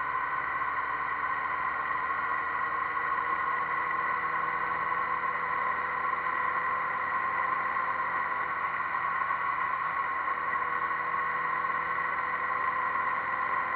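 Motorcycle riding at a steady cruise, its engine running evenly under wind and road noise picked up by a camera mounted on the bike.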